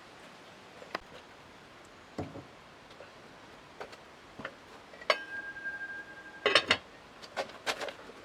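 Scattered light clicks and knocks of things being handled, with a short clear ringing tone starting just after five seconds and a quick cluster of sharper knocks about a second and a half later.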